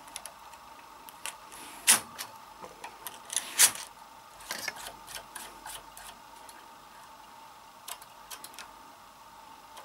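Steel latch needles of a Silver Reed SK280 knitting machine's ribber bed clicking as they are pushed forward into working position. Scattered ticks and a few sharper clacks, the two loudest about two and three and a half seconds in.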